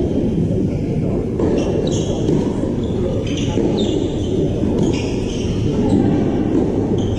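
Tennis ball struck by rackets and bouncing on the court during a rally, short sharp hits every second or so over a steady low rumble.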